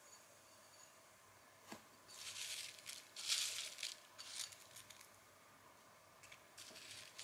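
Fingers rummaging through a ceramic bowl of dry, spiced cornflake snack mix with peanuts, the crisp flakes rustling and crackling in several short bursts. A single click comes a little before the first burst.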